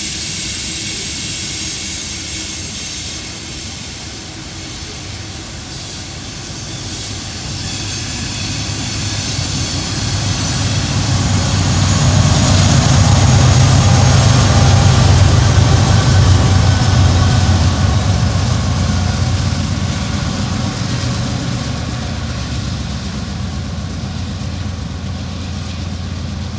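Loaded coal hopper cars roll past with a high steady whine from the wheels. Then the rear-end diesel locomotives pushing the train up the grade go by, their engines rumbling loudest about halfway through and fading as they move away.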